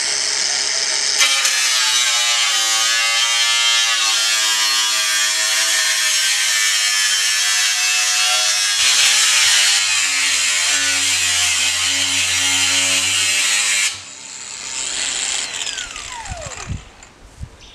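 Angle grinder cutting through a 44-gallon steel drum: a loud, continuous cutting noise with a pitch that wavers as the disc bites into the metal. About fourteen seconds in the grinder is switched off, and its whine falls away over a couple of seconds as the disc spins down.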